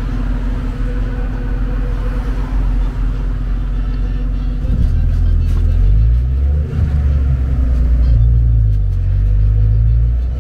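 Low engine rumble and road noise from a tourist road train's open carriage while it drives along a city street, with passing cars. The rumble grows louder about five seconds in.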